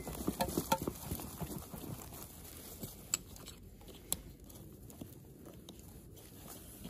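Fabric backpack rustling with soft knocks as a glass bottle and a metal water bottle are pushed into a side pocket and a strap is tightened over them. It is busiest in the first second or two, then trails off to a few scattered clicks.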